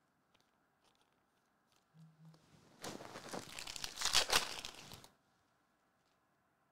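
Plastic foil wrapper of a Select soccer trading-card pack being torn open and crinkled, a dense crackle lasting about two seconds that starts about three seconds in.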